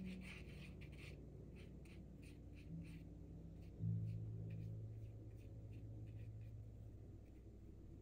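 Paintbrush scratching across cold-press watercolour paper in short strokes, two or three a second. Under it runs soft background music with low held notes, the loudest coming in about four seconds in.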